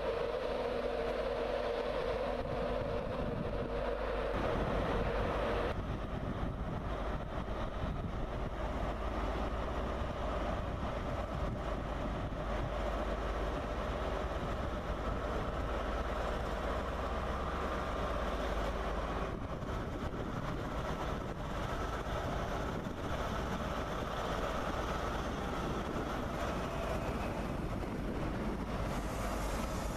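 Steady running of an East Coast Class 43 HST power car's diesel engine at a station. The sound changes around five seconds in.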